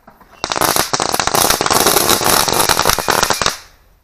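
A pile of small foil-wrapped firecrackers going off together in a dense, rapid string of loud cracks, starting about half a second in and dying away near the end.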